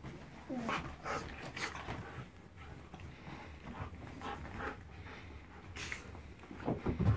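A Siberian husky and a young shiba inu play-fighting on a bed: scuffling and short breathy dog noises, with a louder flurry just before the end.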